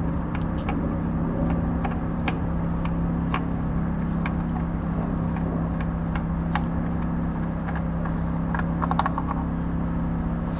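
A steady mechanical hum with a low rumble beneath it, and scattered light clicks, with a quick cluster of clicks near the end.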